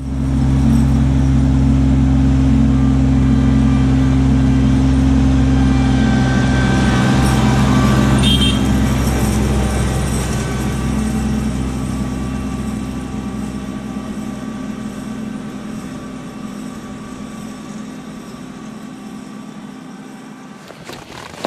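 Kubota LX2610 compact tractor's three-cylinder diesel engine running steadily as the tractor drives along, loud at first and then fading gradually as it moves away, cutting off just before the end.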